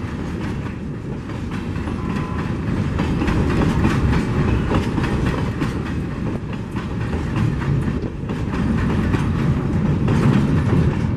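Empty steel hopper wagons of a freight train passing close by at speed: a steady rumble with wheels clicking over the rail joints.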